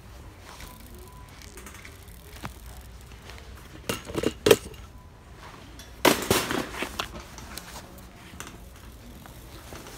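A bunch of keys caught on a metal shopping cart, jangling and clinking against the wire frame in two short bursts, about four seconds in and again about six seconds in.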